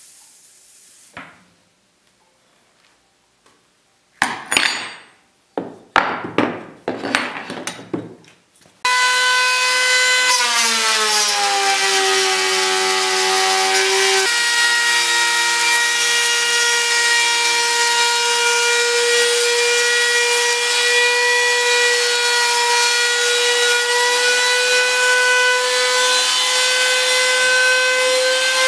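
A few sharp scraping strokes of a steel chisel working on a walnut board, then, about nine seconds in, a handheld power tool starts and runs steadily with a loud whine while it cuts along a walnut door frame. Its pitch dips for a few seconds and then holds.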